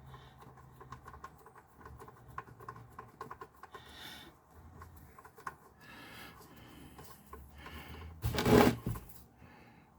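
Small irregular clicks and scrapes of an oil drain plug being turned out by hand from the oil pan of a Ford 4.6 V8, with a brief, louder burst of noise about eight and a half seconds in.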